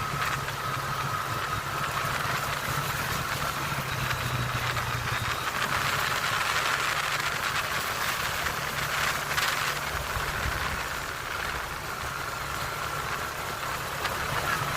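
ATV engine running steadily while riding, with a constant high whine over a low hum.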